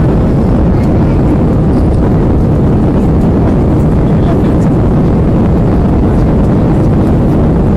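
Steady, loud cabin roar of an Airbus A320-family jet airliner in the climb after take-off: engine noise and rushing airflow heard from a window seat inside the cabin.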